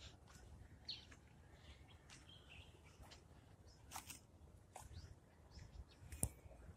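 Near silence: faint outdoor ambience with a few short, sharp knocks, the loudest about six seconds in, and a few faint bird chirps.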